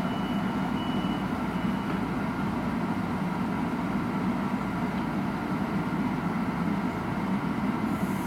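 Metro-North M7A electric train standing at the platform, its onboard equipment giving a steady hum. A high hiss comes in near the end.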